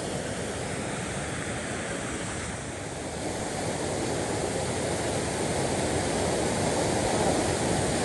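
Mountain stream water rushing steadily, growing a little louder in the second half.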